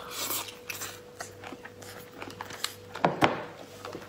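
Close-miked chewing of lobster meat: wet mouth clicks and smacks, with one louder wet sound about three seconds in.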